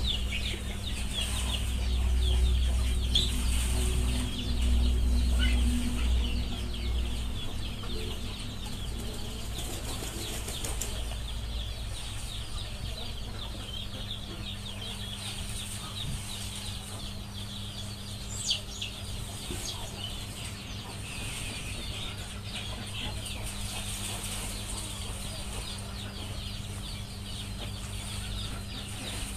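Many small birds chirping continuously in quick short calls, over a steady low hum. A low rumble is louder for the first several seconds, then eases.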